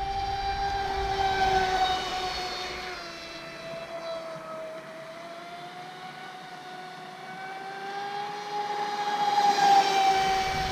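Traxxas Spartan RC boat's brushless motor and drivetrain whining steadily at about half throttle while the boat runs on the plane. The pitch sags a little midway and climbs again near the end. The whine fades in the middle and swells again near the end.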